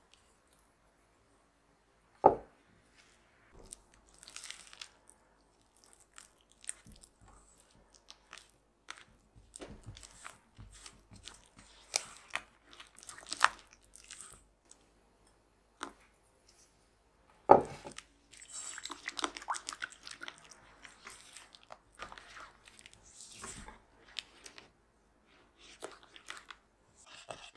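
Silicone rubber spatula stirring fresh cream into sakura bean paste in a stainless steel bowl: irregular soft, wet scraping and squelching. Two sharp knocks stand out, one about two seconds in and one after about seventeen seconds.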